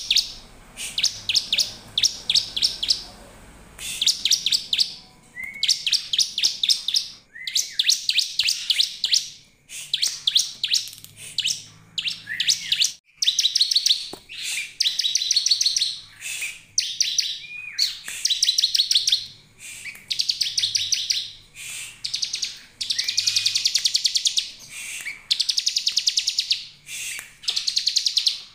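Bar-winged prinia (ciblek) calling as a lure: repeated short bursts of very rapid, high trills, many of them opened by a brief rising note, with short pauses between bursts.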